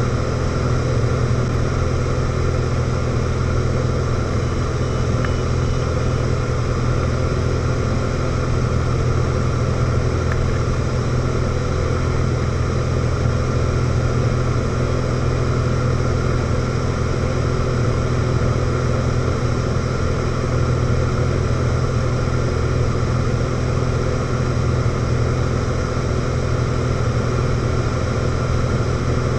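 Light aircraft's engine and propeller running steadily, heard inside the cockpit: a constant low hum with several steady tones above it.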